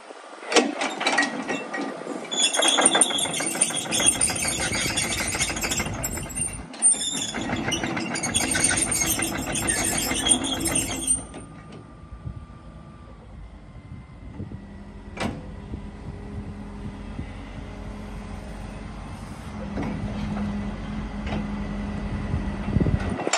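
Volvo EC140 crawler excavator running: loud, dense rattling with steady high tones over it for about the first eleven seconds, then it drops to a quieter, steady engine hum. A single sharp click comes about fifteen seconds in.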